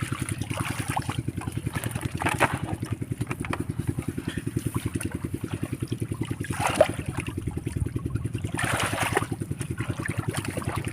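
A small engine running steadily with a fast, even putter, with a few brief splashy noises over it.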